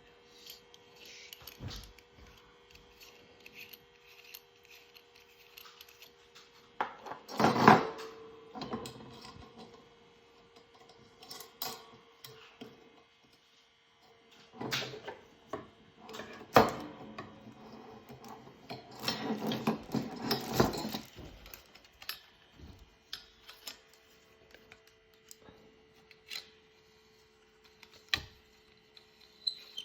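Small hard objects being handled: scattered clicks, clinks and rubbing, in a loud flurry about seven seconds in and again in a longer stretch in the middle. A faint steady hum underneath.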